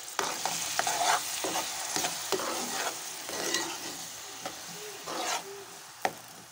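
Chopped green chillies, garlic-ginger paste and tomato sizzling in hot oil in a metal frying pan, with a metal spoon scraping and knocking on the pan again and again as they are stirred. This is the frying of a tadka (tempering) base.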